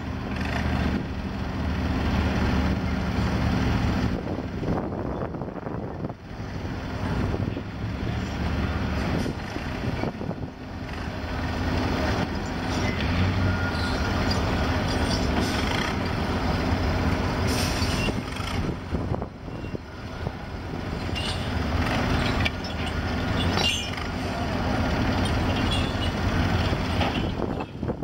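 Forklift engine running as the forklift moves about close by, rising and falling in level, with a few sharp clanks later on.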